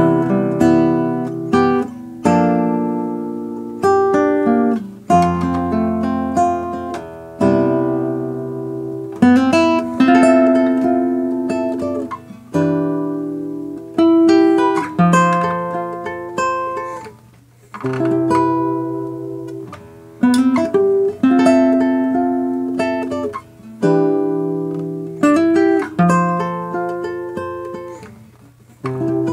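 Classical guitar played fingerstyle: a slow solo piece of plucked chords and melody notes, each chord struck and left to ring and fade before the next.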